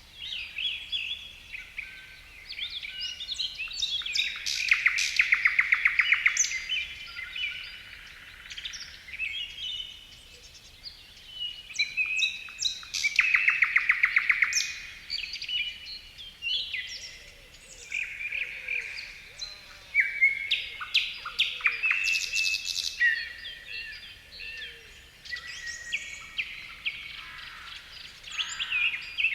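Several birds singing and calling at once, a dense mix of chirps and whistles, with a loud rapid trill standing out twice.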